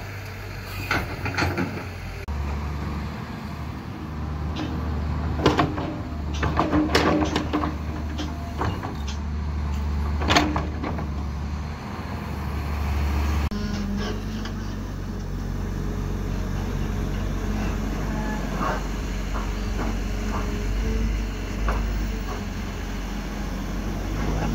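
Diesel engines of hydraulic excavators running under load while digging, the engine note changing abruptly twice. Sharp metallic clanks and knocks come in a cluster through the middle, typical of a steel bucket striking soil and stones.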